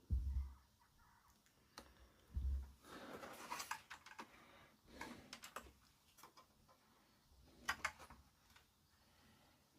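Handling noises on a workbench: a couple of dull bumps, then clusters of light clicks and rattles, twice.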